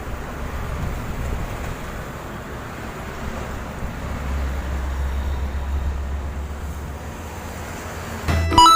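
Road traffic noise: vehicles running past with a steady low rumble that swells a little in the middle. Music cuts in near the end.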